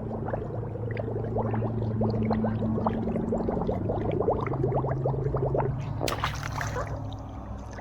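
Water dripping and trickling into a pool: many small rising plinks, several a second, over a steady low hum, with a brief splash about six seconds in.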